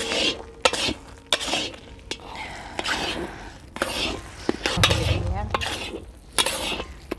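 Metal spatula scraping and stirring thick carrot halwa (gajrela) in a large metal kadai over the fire, in irregular strokes about every half second, with a faint sizzle of the cooking mixture.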